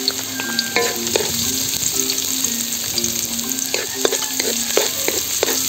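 Chopped garlic and ginger sizzling in hot annatto oil in a wok, with a wooden spoon clicking and scraping against the pan as it is stirred.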